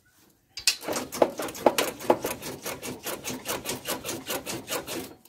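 Go-kart independent rear suspension being worked up and down: its single trailing arm and coil-over shock creak and rub in a quick, even rhythm of several strokes a second.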